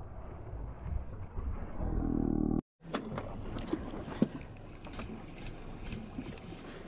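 Low rumbling noise of a small fishing boat at sea, with a pitched hum swelling for about half a second just before the sound cuts off abruptly. After the cut comes a thinner background with scattered sharp clicks and knocks.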